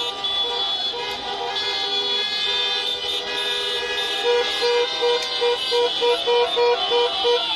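Many car horns honking together in celebration, several held notes overlapping. From about four seconds in, one horn beeps in a quick, even rhythm, about three times a second.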